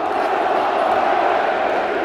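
Large crowd of basketball fans in the stands chanting together, a steady dense mass of voices.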